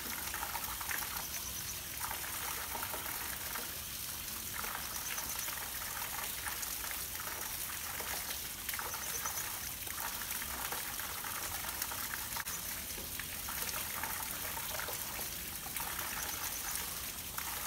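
Water of a natural spring trickling and splashing steadily.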